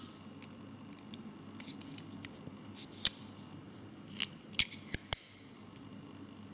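Leatherman Crater C33 folding knife being handled: a few faint ticks, then five sharp metallic clicks in the second half, the last one ringing briefly.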